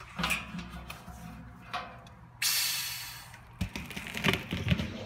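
Clear plastic hoses being handled inside a stainless steel tank, rustling and knocking against the metal. About halfway through comes a sudden hiss of about a second, then a run of knocks.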